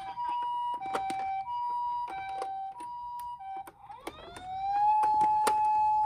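Toy ambulance's electronic siren playing the two-tone Japanese ambulance "pee-po" sound, a high and a lower note alternating, then switching to a single tone that rises and holds steady near the end. Light plastic clicks from the toy being handled.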